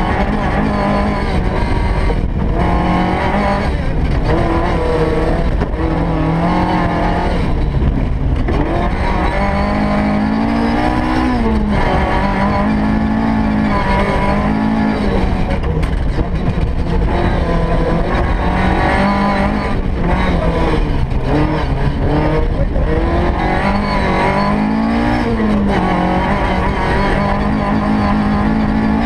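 Rally car engine heard from inside the cockpit, pulling hard and rising in pitch, then dropping back through gear changes and lifts, over and over. A constant rumble of tyres on the gravel road runs underneath.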